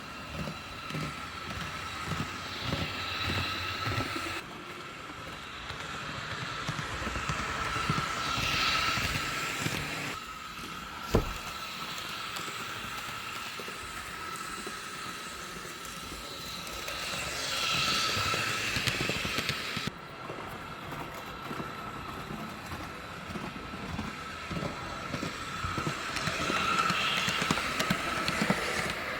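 HO-scale Piko class 442 electric multiple unit model running on a model railway layout: a steady high whine with the rumble and small clicks of its wheels on the track, swelling louder about every nine seconds as it passes close. One sharp click about eleven seconds in.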